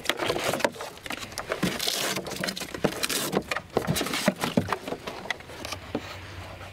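Knocks, clicks and rubbing of an Orlan-10 drone's wing panels being unclipped, lifted out of their transport case and fitted to the fuselage. The handling is busiest for the first five seconds or so and thins out near the end.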